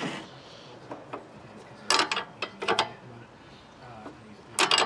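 Metal hand tools clicking and clinking in three short bursts, about two, two and a half and nearly five seconds in, as a 17 mm ring spanner works a rusted rear-suspension drop-link nut loose while a 10 mm tool counters it.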